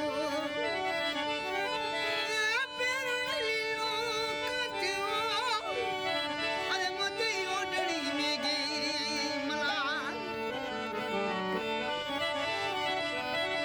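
Rajasthani Manganiyar folk song: a male voice sings wavering, heavily ornamented lines over a steady harmonium drone, then drops out about ten seconds in while the harmonium carries the melody.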